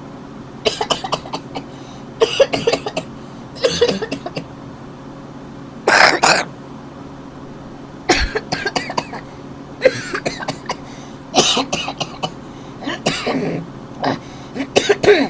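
A man coughing and clearing his throat over and over, a short bout every second or two, with a steady low hum underneath.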